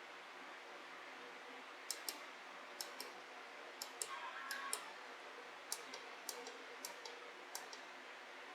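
About a dozen faint, sharp clicks at uneven intervals, starting about two seconds in, as the controls of a 1938 Zenith 6S330 radio are worked while it is tuned toward 4 megahertz on the police band. A faint steady hiss lies underneath.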